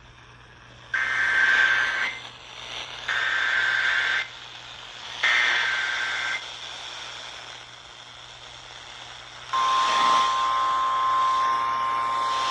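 Emergency Alert System signal for a severe thunderstorm warning: three short, raspy, buzzing bursts of SAME header data about a second apart, then a steady, high attention tone that begins about three seconds after the last burst.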